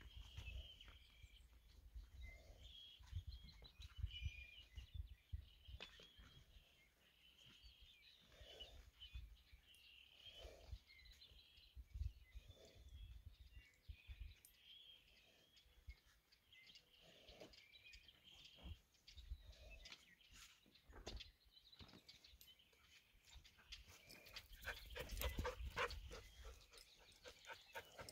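Near silence of an open pasture: gusts of wind rumbling on the microphone and faint, broken chirping. A short patch of soft knocks and rustles comes near the end.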